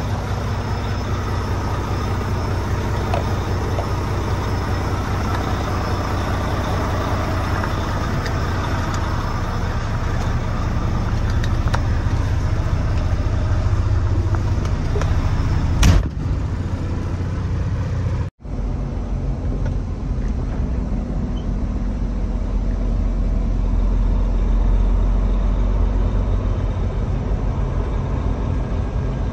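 Semi-truck's diesel engine running with road and cab noise as it pulls a trailer, heard from inside the cab as a steady low rumble. Past the middle come a sharp click and, about two seconds later, a split-second dropout, after which the rumble is deeper.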